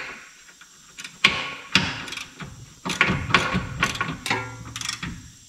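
Hand wrench on a lower control arm's front bolt: several irregular metallic clanks and clicks as the bolt is snugged up, a few of them ringing briefly.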